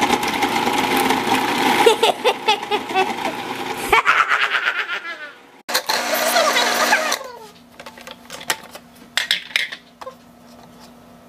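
Cuisinart food processor running, its blade chopping whole bananas with the peels on: a motor hum with dense rattling and slapping of the chunks for about four seconds, then a second shorter run about six seconds in. After that, light scattered knocks as the mashed bowl is handled.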